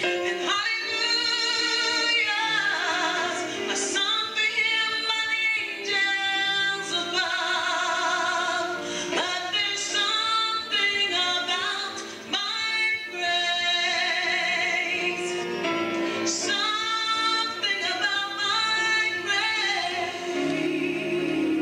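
A woman singing a solo worship song into a handheld microphone, holding long notes with a wide vibrato and pausing briefly for breath between phrases.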